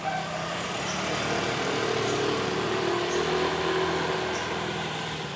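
Small motorcycle engine running as it goes by, swelling soon after the start, holding through the middle and easing off near the end.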